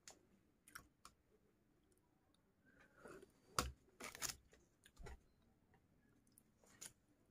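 Faint, scattered clicks and taps, a few slightly louder ones a little past the middle: multimeter probe tips being touched to and moved over a TV circuit board.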